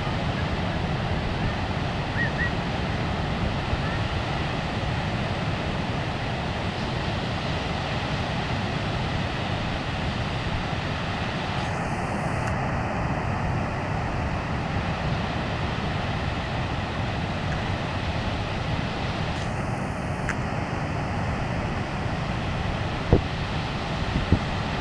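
Ocean surf rushing steadily at the shoreline, with wind buffeting the microphone. A few sharp clicks come near the end.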